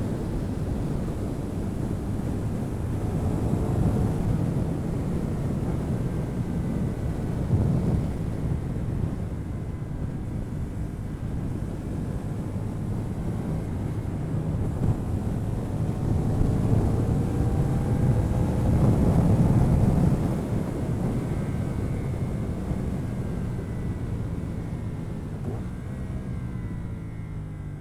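CFMoto 450NK parallel-twin engine with its stock exhaust, heard from onboard at speed and largely drowned out by wind rushing over the microphone. The engine note climbs through the revs about two-thirds of the way in, then falls away as the bike slows near the end.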